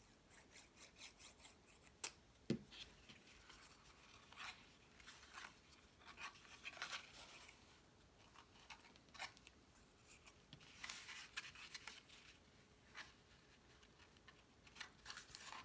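Faint rustling, rubbing and scraping of cardstock pieces being handled and slid against each other on a table, with two sharp taps about two seconds in.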